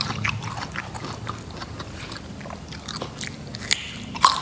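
Close-up crunchy chewing and biting of raw rattan shoot: a stream of irregular crisp crunches, with a louder crunch near the end.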